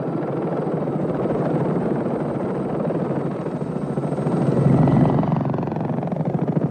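Helicopter rotor blades chopping rapidly and evenly, growing louder to a peak about five seconds in.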